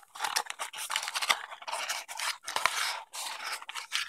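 Small cardboard box being opened by hand and a camera module lifted out of its packaging: a run of cardboard scraping and rubbing with packaging rustle and a few sharp clicks, in uneven bursts with short pauses between them.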